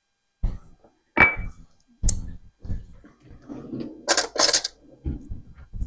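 A spoon and soup bowl knocking and clinking as the bowl of soup is handled, one clink ringing briefly, with two short crackly rustles about four seconds in.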